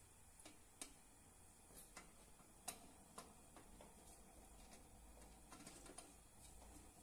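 Near silence with a dozen or so faint, irregular small clicks and taps.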